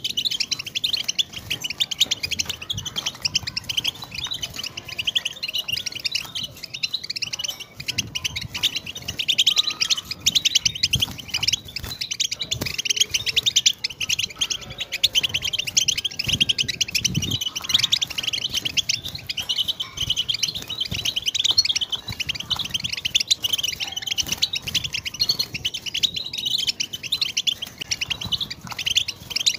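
European goldfinch singing a long, unbroken song of rapid twittering chirps and trills.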